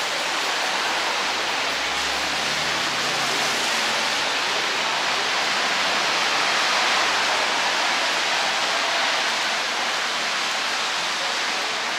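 Steady rain falling, a continuous even hiss, with a faint low hum passing underneath about two to four seconds in.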